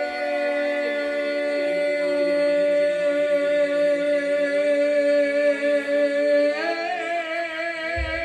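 Music with long held notes that change pitch about six and a half seconds in and take on a wavering vibrato.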